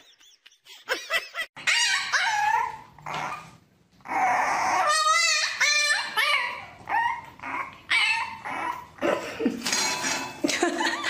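A dog whining and yipping: a run of high, wavering cries broken by short pauses, one with a quick warble about five seconds in.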